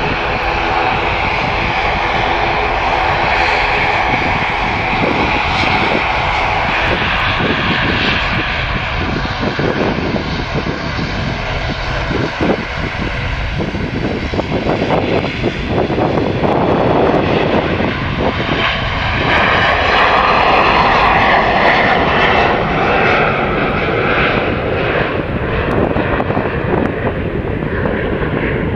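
An ATR 72-600 turboprop's engines and propellers drone on the runway with a steady, many-toned hum. This gives way to an Embraer E175 twin-jet taking off, its turbofan noise swelling to the loudest point past the middle and easing slightly as it climbs away.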